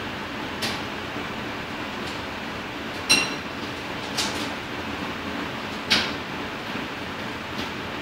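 Sharp metallic clicks and knocks, four or five of them, from a Cinemeccanica Victoria 5 35mm cinema projector being handled at its controls and mechanism. The loudest come about three and six seconds in, the first with a short ringing clink. A steady mechanical hum from the projection-booth machinery runs underneath.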